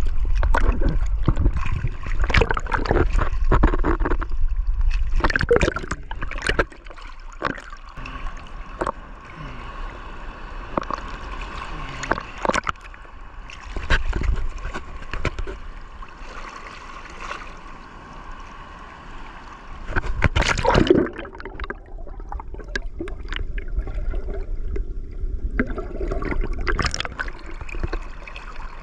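Seawater splashing and gurgling around a camera held at the surface and dipping in and out of the water. A run of sharp splashes fills the first six seconds, quieter sloshing follows, and one loud splash comes about twenty-one seconds in.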